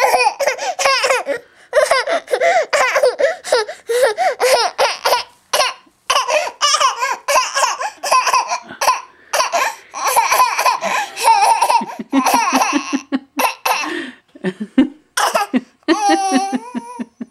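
Baby laughing in long runs of short, high-pitched bursts, catching breath in a few brief pauses.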